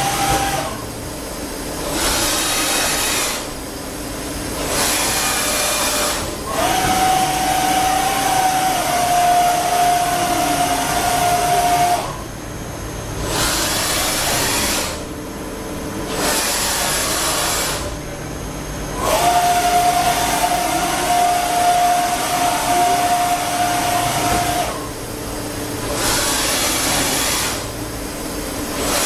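CNC vertical lathe running, with a loud hiss that cuts in and out every one to three seconds. Through two longer stretches, one from about six to twelve seconds in and another from about nineteen to twenty-four seconds in, a steady whine sounds over the hiss.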